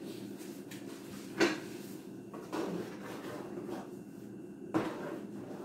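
A few separate knocks and clunks of a utensil against a metal cooking pot as it is stirred, over a steady low hum.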